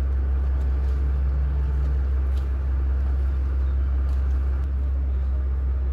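Low, steady drone of a boat's engine, heard from on board as the boat moves along, with a faint hum in the first couple of seconds.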